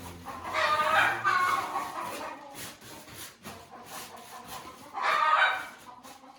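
Chickens clucking, with two loud calls: one about half a second in and another near the end.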